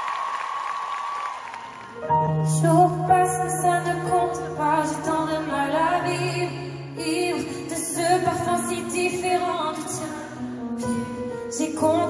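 Live pop concert music heard from the audience. A held note dies away, and about two seconds in a new song starts with a bass line and instruments, soon joined by singing, with a woman's voice among the singers.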